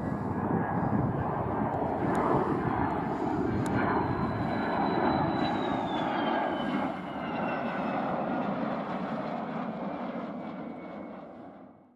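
F-16D Barak fighter jet on landing approach, its single turbofan engine running with a steady rushing noise and a high whine. The whine drops in pitch as the jet passes, about halfway through. The sound fades out quickly at the very end.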